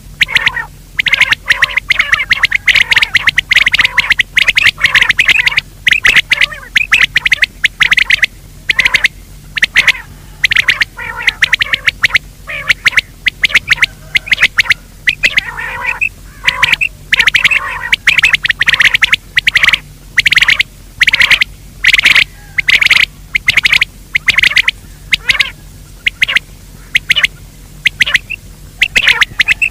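Rapid, harsh, repeated calls of a game bird of the quail and francolin family, coming in dense bursts with short gaps. A low steady hum runs underneath.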